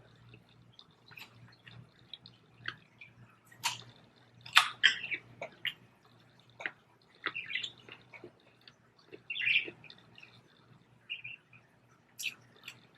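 Pet birds chirping quietly now and then, short scattered chirps mixed with small clicks.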